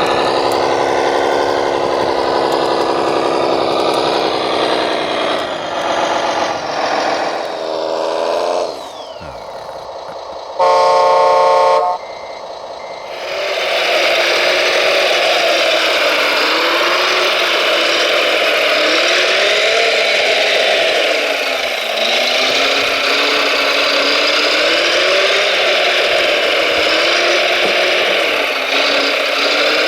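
Radio-controlled model trucks and construction machines running, their motor note steady at first, then wavering up and down. About ten seconds in there is a single steady horn blast lasting about a second and a half.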